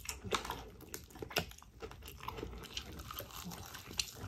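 Close-up chewing and biting of crispy fried chicken, with a run of irregular crunches.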